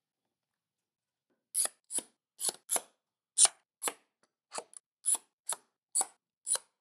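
Bar clamps clicking as they are slid on and tightened along a glued plywood lamination: short, sharp metallic clicks about two a second, starting about a second and a half in.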